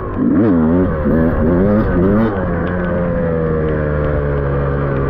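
Yamaha dirt bike engine under way, its revs swinging up and down about four times in quick succession as the throttle is worked. About two seconds in it settles into a steady note that slowly sinks.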